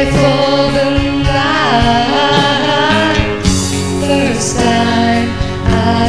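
Music: a song with a singer holding long notes with vibrato over instrumental accompaniment, recorded outside a professional studio.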